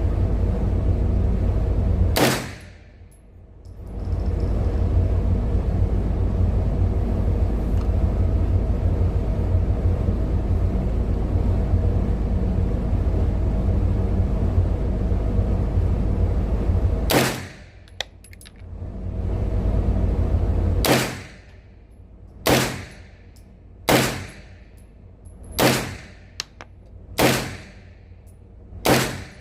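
Gunshots on a shooting range over a steady low rumble: a single shot about two seconds in and another near seventeen seconds, then a string of single shots about one and a half seconds apart from about twenty-one seconds on.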